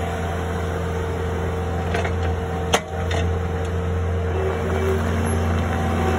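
Caterpillar skid steer loader's diesel engine running steadily as the machine drives and turns, with a single sharp clack about three seconds in.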